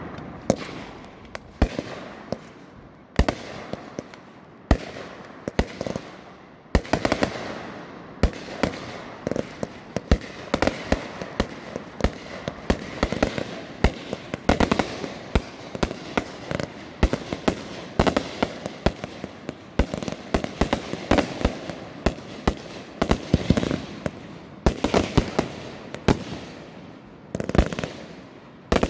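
Aerial fireworks going off: a few separate bangs at first, then from about seven seconds in a rapid, continuous barrage of bangs and crackling, several a second.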